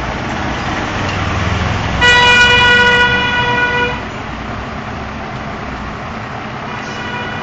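A vehicle horn sounds one steady held note for about two seconds, starting about two seconds in, over a low rumble of traffic.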